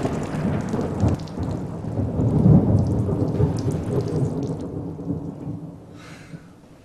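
Thunder with rain: a low rumble that swells about two and a half seconds in, then dies away over the next few seconds.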